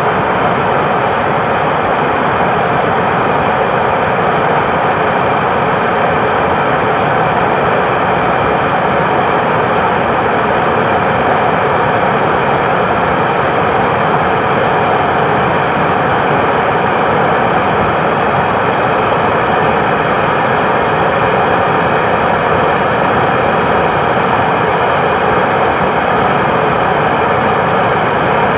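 A powerful blower running steadily, forcing air through a water-clogged dryer vent duct: a loud, even rush of air and motor noise that does not change.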